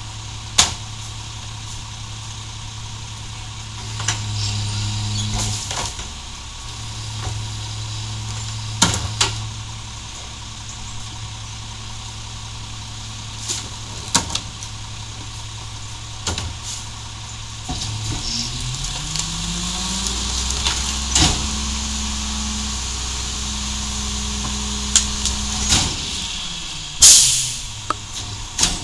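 Mack MR garbage truck's Caterpillar diesel idling, with sharp knocks as trash carts are banged against the McNeilus rear loader's hopper. About two-thirds of the way through the engine revs up and holds a higher speed for several seconds to drive the hydraulic packer blade, then drops back, with a loud clattering burst near the end.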